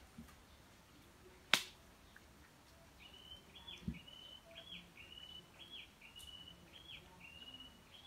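Puppies eating kibble from a steel bowl in a wire crate: a sharp click about a second and a half in and a duller knock near four seconds. From about three seconds, a steady series of high chirps, about two a second.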